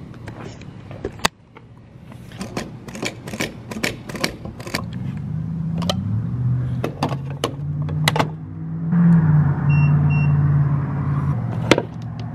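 Refuelling at a gas pump, with the nozzle in a car's filler neck: a run of sharp clicks and a steady low hum, then two short beeps. Near the end comes a single click as the fuel door is pushed shut.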